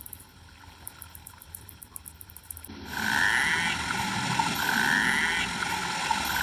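Narwhal calls from an underwater recording: a faint train of rapid clicks, then from about three seconds in a rasping pulsed call rising in pitch, repeated about every second and a half.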